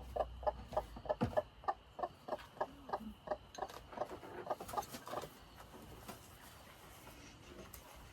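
A hen clucking in a fast, steady run, about four clucks a second, which stops about five seconds in.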